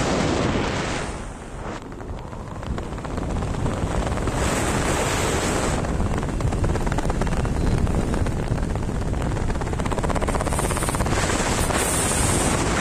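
Rushing wind on an action camera's microphone in a skydive, steady apart from a short lull about a second in.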